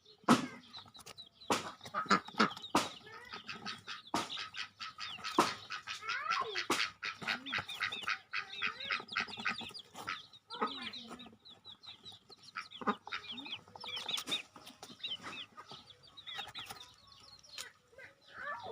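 Birds calling: a busy run of many short chirps and clucks, with sharp clicks or taps scattered among them.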